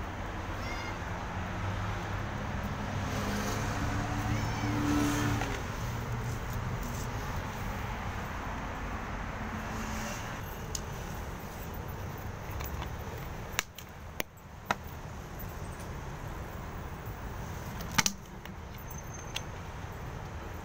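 A motor vehicle engine runs for the first ten seconds over steady street noise, rising briefly in pitch as it speeds up, then fades away. After that come a few sharp clicks, the loudest near the end.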